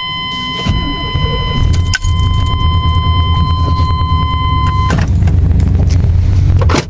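1994 Chevrolet C1500's 350 V8 with throttle-body injection starting up and settling into a steady idle, with an exhaust leak from loose header bolts. A steady dashboard warning chime rings over it and stops about five seconds in.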